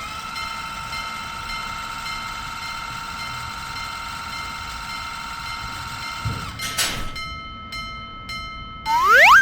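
Synthesized train sound effects: a steady chord of held electronic tones, cut by a short rushing noise about six and a half seconds in. After that the tones pulse on and off, and a quick rising cartoon 'boing' glide comes near the end.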